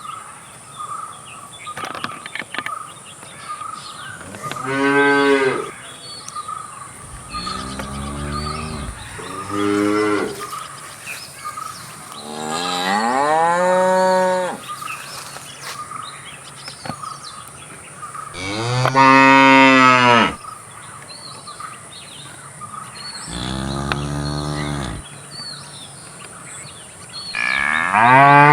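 Cows mooing, about seven moos of varying length a few seconds apart, some rising and then falling in pitch.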